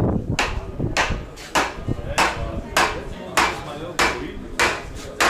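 Rhythmic knocking: a steady series of sharp blows about 0.6 seconds apart, nine in all, each ringing out briefly.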